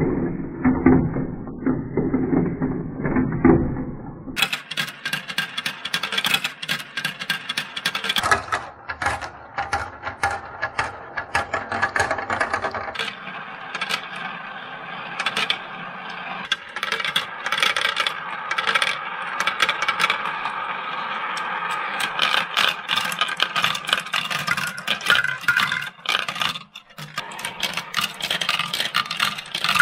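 Marbles rolling and clattering down a plastic marble-run track: a continuous rattle of many quick clicks as they knock along the chutes and funnels. The sound is dull and muffled for the first four seconds or so, then turns bright and clicky.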